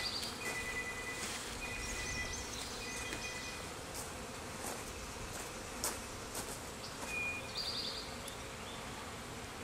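A swarm of honey bees buzzing steadily around the branch they are clustered on.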